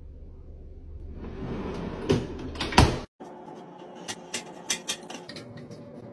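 A stocked refrigerator drawer sliding shut, a rising rush ending in two knocks. Then aluminium soda cans are pushed into a metal wire can-rack dispenser, a run of light clicks and clinks.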